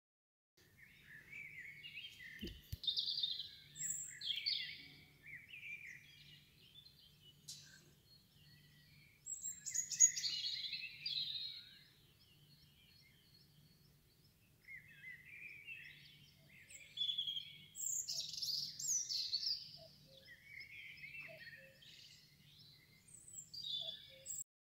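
Birds chirping and singing in bursts of quick, sweeping phrases, with a lull in the middle. A faint low hum pulses evenly underneath.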